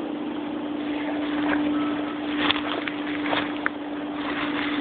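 Footsteps rustling and crackling through dry grass and brush, with a few sharp snaps in the middle, over a steady low hum.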